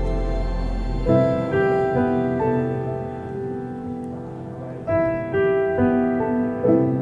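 Background music: slow, gentle piano chords. A new chord is struck about a second in, again around the five-second mark and near the end, each left to ring and fade.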